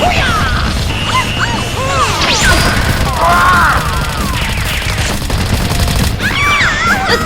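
Dense mix of gunfire sound effects and crashes over background music, with many sliding high-pitched sounds throughout.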